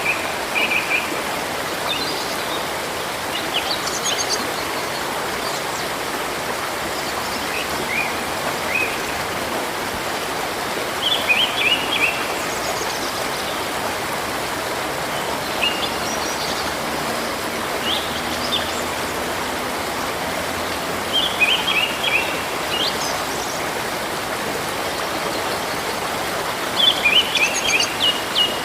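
Steady rush of a flowing river or stream, with small birds singing short, high chirping phrases every few seconds over it.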